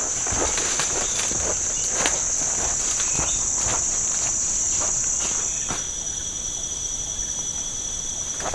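Rainforest insect chorus, a steady high-pitched buzz, with a second, lower insect tone joining about two-thirds of the way through. Footsteps on the forest floor sound over the first half.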